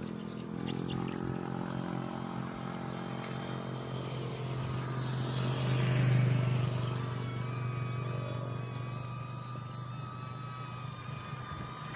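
A motor vehicle engine running steadily, swelling louder about six seconds in as a vehicle passes, then settling again with a thin steady whine over it.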